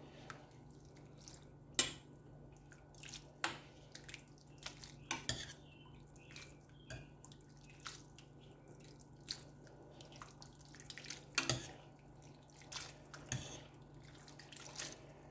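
Pot of ramen noodles cooking in boiling water, with scattered light pops and taps over a steady low hum.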